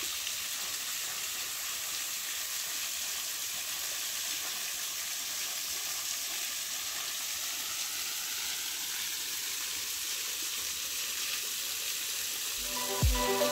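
Thin streams of a small waterfall pouring off a rock ledge and splashing onto the rocks below, making a steady, even hiss of falling water. Music with a thumping beat comes in near the end.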